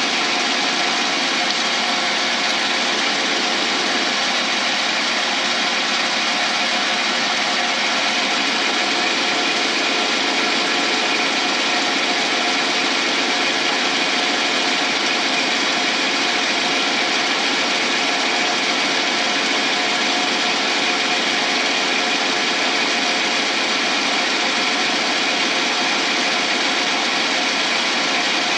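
Lathe running steadily while a tool takes cutting passes on a cast blank being turned round, an even mechanical whir and cutting noise that does not change.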